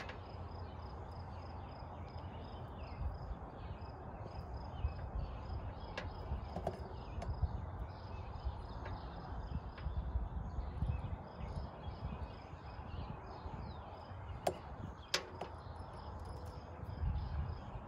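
Outdoor ambience: a low wind rumble on the microphone under a steady, evenly pulsing insect chorus, with a few faint clicks about six seconds in and again near the end.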